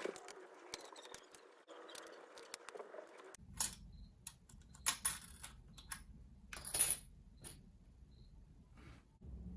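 Laptop parts being handled during disassembly: soft rustling with small clicks, then a few sharper clicks and knocks.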